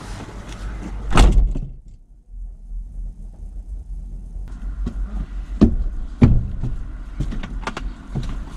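A van door slammed shut about a second in, followed by scattered knocks and clunks inside the van cabin, two of them sharp and loud about two thirds of the way through. A faint steady tone comes in about halfway.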